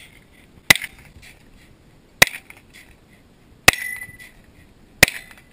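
Four rifle shots, sharp loud cracks about a second and a half apart, each with a brief ringing tail.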